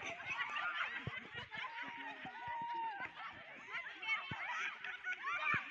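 Spectators chattering and laughing over one another, with a few low thumps.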